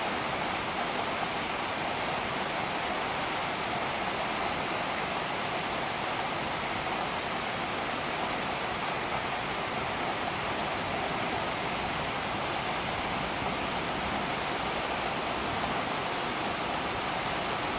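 Storm sound effect: a steady, even rush of storm noise, with no thunderclaps.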